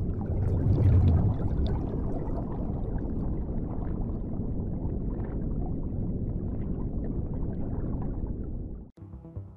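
Underwater bubbling and low rumbling, loudest about a second in, cutting off suddenly just before the end, where music begins.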